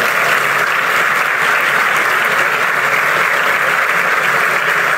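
Crowd applauding steadily, a dense, even clapping.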